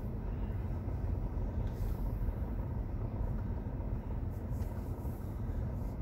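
Steady low rumble with a faint hiss inside a parked car's cabin.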